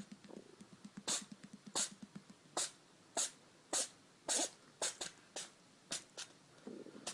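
An animal sneezing over and over: about a dozen short, sharp sneezes roughly every half second, a little weaker toward the end.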